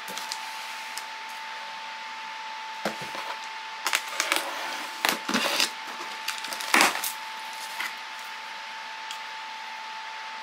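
Cardboard shipping box being opened by hand. The cardboard rustles and rips in several short, irregular bursts, loudest around the middle. A faint steady high tone runs underneath.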